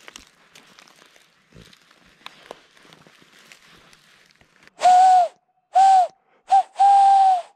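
Four loud, harsh crow caws in quick succession, the last one the longest, each ending on a slight downward bend. Before them, faint crackling and rustling like footsteps in dry leaf litter.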